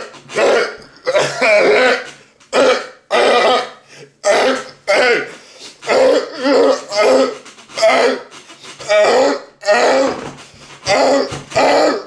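A man making a string of strange, rough throat noises, about one a second, each short burst wavering in pitch.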